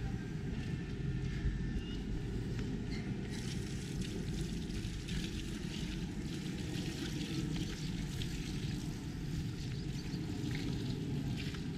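Steady wind noise on the microphone outdoors: a low rumble with a fainter hiss above it.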